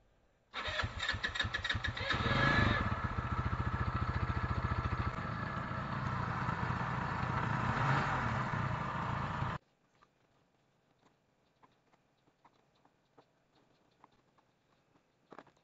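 GY6 single-cylinder four-stroke scooter engine cranked by its electric starter, catching after about two seconds, then running with a loud noise until it cuts off suddenly. The noise is typical of a failed starter clutch stuck to the crankshaft, turning with it and wearing the starter motor's brushes.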